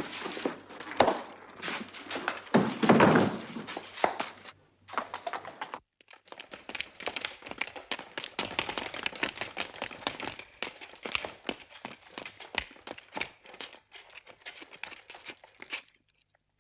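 Soldiers' boots tramping on a stone floor: a dense run of quick footfalls and knocks, with a few heavier thumps in the first seconds.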